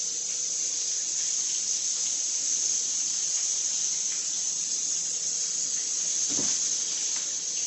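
Chicken patties frying in oil in a pan: a steady, even sizzling hiss.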